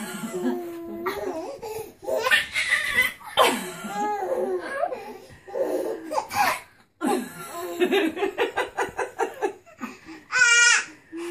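A baby laughing hard: belly laughs that break into a quick run of rhythmic "ha-ha" pulses partway through, ending with a short high-pitched squeal.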